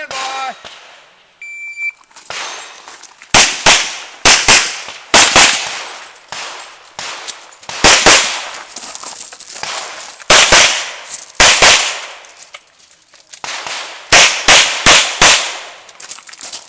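Revolver gunfire on a practical shooting stage: loud single shots, mostly in quick pairs a third of a second apart, in strings with pauses of a second or two between them. About a second and a half in, a short electronic shot-timer beep sounds as the start signal, before the first shot.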